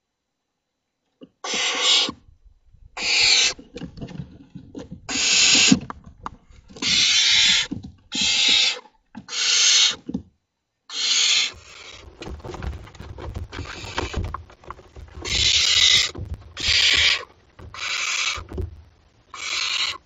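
Barn owl young inside a wooden nest box giving a dozen or so harsh hissing calls in a row, each about half a second to a second long. From about midway, rustling and knocking of birds moving and flapping in the box fills the gaps between calls.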